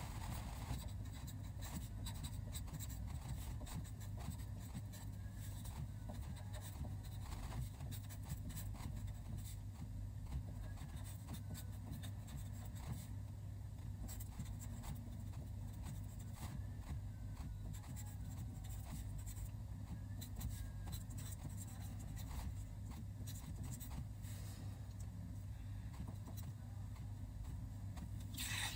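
A pen writing Chinese characters on a sheet of paper: many short, irregular scratching strokes of the tip on the paper, over a steady low hum, with a brief louder rustle near the end.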